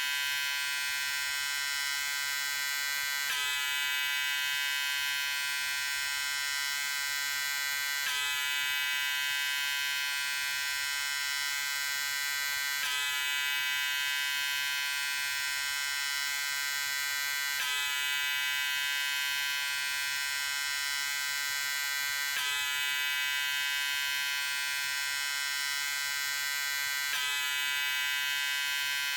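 Electric shaver running continuously with a steady, high-pitched buzz. It is a repeating loop, with a slight recurring change about every five seconds.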